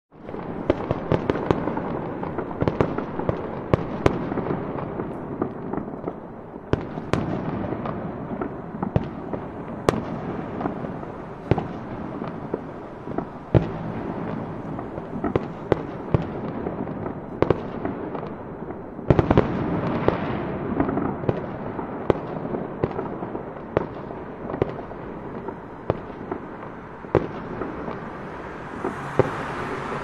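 Fireworks exploding: many sharp irregular bangs and cracks over a continuous rumble, growing denser and louder about two-thirds of the way through.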